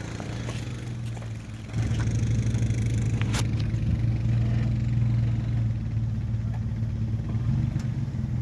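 Four-door Jeep Wrangler's engine pulling under load as it crawls up a rock ledge. It gets louder about two seconds in and then holds a steady low drone. A single sharp knock comes about three and a half seconds in.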